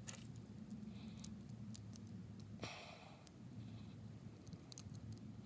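Faint small metallic clicks and ticks of a treble hook being worked onto a metal can-lid fishing lure, over a low steady hum, with one short hiss about two and a half seconds in.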